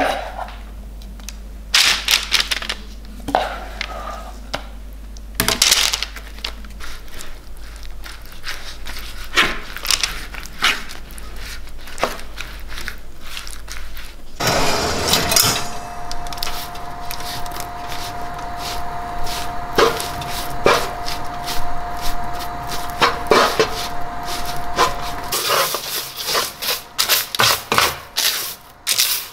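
Spatula spreading a mash of cooked red lentils over a parchment-lined baking tray: soft scrapes and taps on the paper and tray. About halfway through a steady hum comes in under the scraping for ten seconds or so, and near the end the spatula stirs the oven-baked, crumbly lentils with quicker scrapes.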